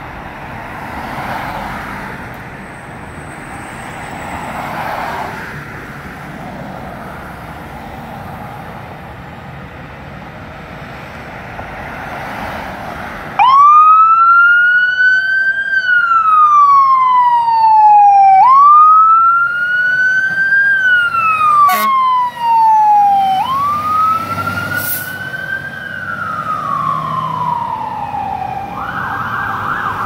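Fire truck siren coming on suddenly about 13 seconds in. It sounds a wail that rises, then slowly falls, three times at about five seconds each, then switches to a fast yelp near the end. Before it there is only steady street and traffic noise.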